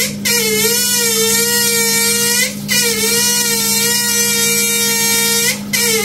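Handheld bidet sprayer spraying water and giving off a loud, wavering whistle. It breaks off briefly about two and a half and five and a half seconds in, then starts again.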